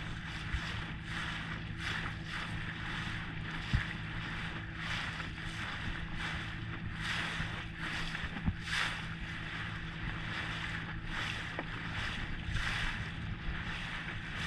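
Small boat running on the sea: a steady engine hum under repeated splashes of water against the hull, each swelling and fading every half second to a second.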